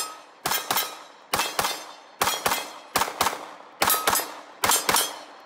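A Glock pistol fitted in a stabilizing brace firing double taps: six pairs of shots, each pair about a quarter second apart and a pair every second or less, with a brief ringing tone after some shots.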